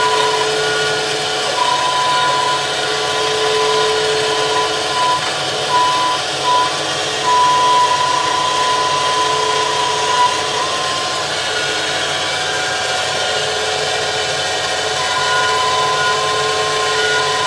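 Mantis 6010 crawler crane's diesel engine running under load, heard from inside the operator's cab as the crane crawls along a lowboy trailer deck. A high whine from the hydraulics comes and goes over it in stretches of a fraction of a second to about three seconds.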